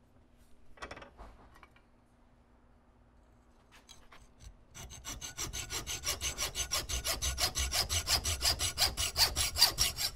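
Hacksaw cutting through metal stock held in a vise, in quick, even strokes that start about five seconds in and grow louder, roughing out a small gun part. A brief clatter of handling comes about a second in.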